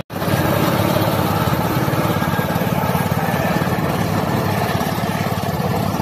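Two small petrol-engined vibratory plate compactors running at full throttle, their plates pounding crushed rock into road potholes, a steady engine drone with a fast, even pulsing.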